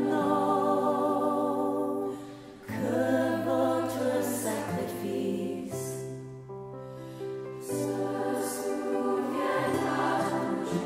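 Youth choir singing a slow song in long sustained notes over a low held note, dipping briefly quieter about two seconds in.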